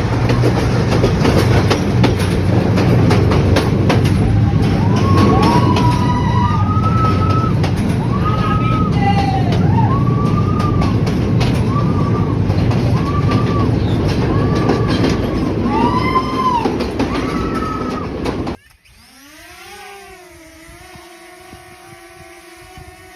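Steady loud rumble of a moving vehicle, with a run of short high notes above it, each rising and falling over about half a second. It cuts off sharply about 18 seconds in to a much quieter sliding tone.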